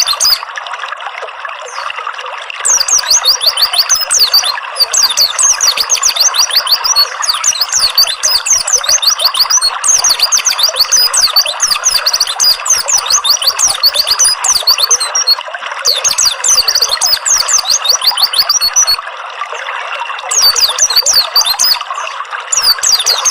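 Water trickling and splashing steadily, with a small songbird chirping in long runs of rapid, high, repeated notes over it. The chirping stops for a couple of seconds at the start and pauses briefly twice later.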